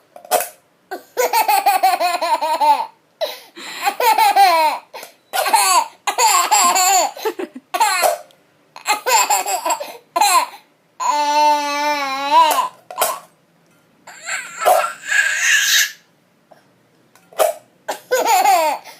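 A baby laughing in repeated bouts of high-pitched giggles and belly laughs with short pauses between them. About eleven seconds in, a held, wavering tone lasts over a second.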